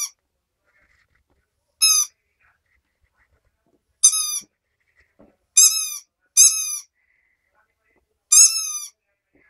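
A squeaker in a pink bone chew toy squeaking as a corgi puppy bites down on it. There are about six short squeaks, each dipping slightly in pitch, spaced a second or two apart, with two coming close together past the middle.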